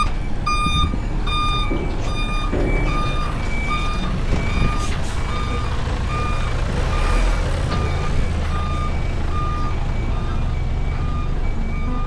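Heavy vehicle's reversing alarm beeping steadily, a little under two beeps a second, growing fainter after the first couple of seconds, over the low running of a vehicle engine that gets stronger about halfway through.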